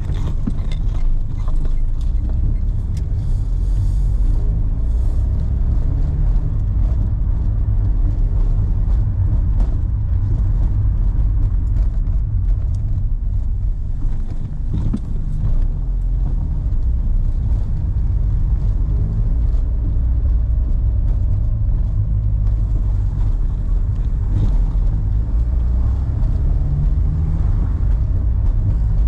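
A 2011 Renault car driving, with a steady low rumble of engine and road noise.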